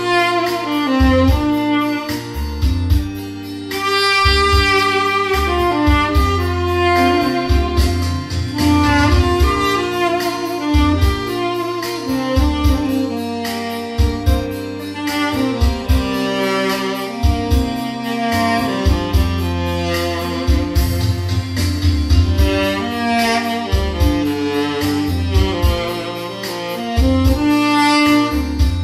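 Tenor saxophone with a metal mouthpiece playing a slow melody, dry with no added effects, over a backing track with bass and drums.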